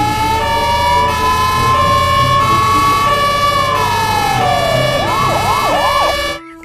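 Electronic ambulance siren: a slow rising and falling wail, then three quick up-and-down yelps, cutting off suddenly near the end.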